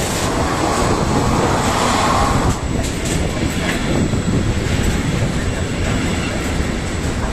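Intermodal container freight train passing close by: steady rumble of the wagons' wheels on the rails, a little louder for the first two and a half seconds and then slightly quieter.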